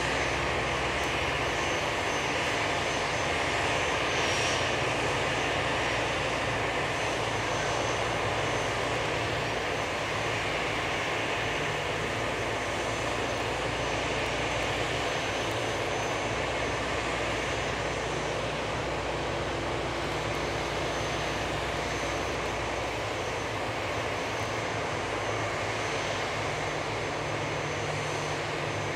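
Steady aircraft noise from an Airbus A340-300 under tow on the taxiway: a constant high whine over a broad rush and a low hum.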